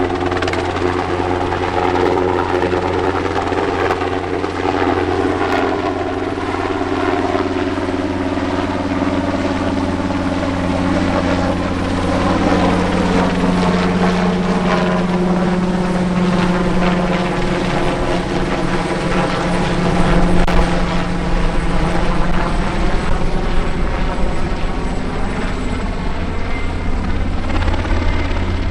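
Military transport helicopter running close by: steady rotor and engine noise. Its sound sweeps and changes through the middle as the aircraft moves, then grows a little louder after about twenty seconds.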